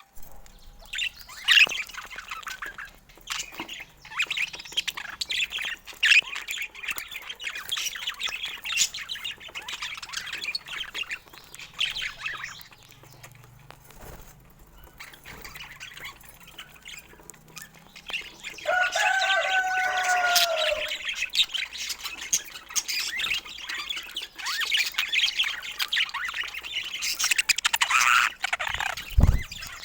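Budgerigars chattering and chirping, with a louder, drawn-out squawk about two-thirds of the way through and a low thump near the end.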